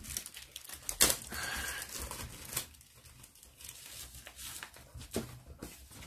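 Packaging rustling and crinkling as a cardboard keyboard box is opened and its inserts are lifted out. There is a sharp click about a second in, a burst of rustling just after it, and fainter handling after that.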